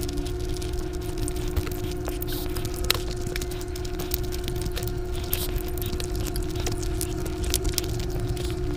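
Close-up mouth sounds of chewing a mouthful of food, with wet squishing and many small clicks as bare fingers mix rice and gravy. A steady hum runs underneath.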